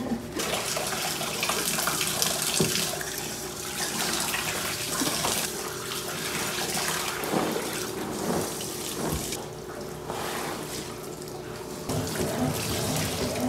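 Tap water running into a laundry sink, splashing as clothes are rinsed by hand under the stream; the rush eases a little for a couple of seconds near the end.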